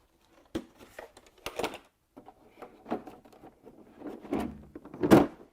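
Scattered light clicks and knocks of hand tools being handled in a tool cart, with a louder knock near the end.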